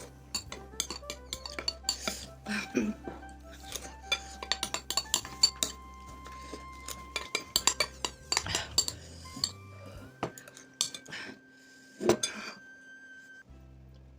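Eating utensil clinking and scraping against a noodle bowl in many quick, sharp, irregular clicks, over background music.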